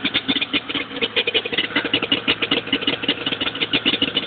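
1980 Ski-Doo Blizzard 9500 snowmobile's two-stroke engine idling, with a rapid, slightly uneven pulsing beat.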